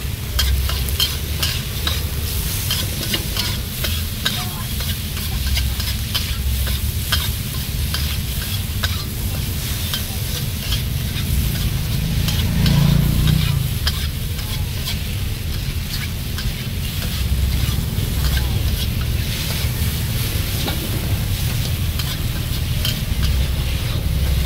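Noodles stir-fried in a steel wok: a metal ladle and spatula scrape and clack against the pan over a steady sizzle, many sharp taps and scrapes throughout. A steady low rumble runs underneath, with a brief low hum about halfway through.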